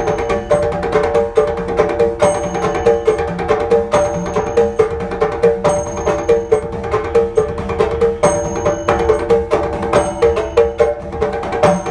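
Kerala temple percussion accompanying Nangyarkoothu: fast, continuous strokes on mizhavu copper pot drums and an edakka hourglass drum, with small kuzhithalam cymbals ringing out every couple of seconds.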